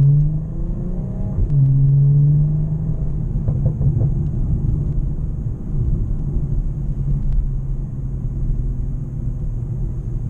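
BMW M340i's turbocharged 3.0-litre inline-six accelerating. Its note rises, breaks off about a second and a half in as the car shifts up, climbs again, then settles into a steady lower drone while cruising.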